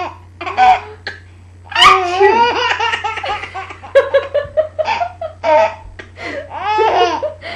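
Baby girl laughing hard in a string of short, high-pitched bursts.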